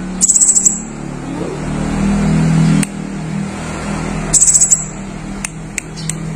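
A pentis raja flowerpecker giving two short, very high, rapid trills: one near the start and one about four seconds in, with a few sharp ticks near the end. Under it a vehicle engine runs steadily, swelling in the middle.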